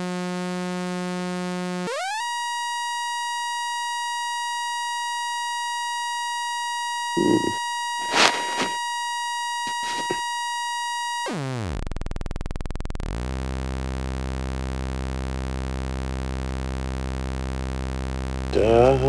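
Sawtooth oscillator in the Drambo synth app sounding a steady buzzy tone. About two seconds in it glides quickly up to a high steady whine, and near eleven seconds it sweeps down to a low buzz and stays there. A few short noises come in the middle.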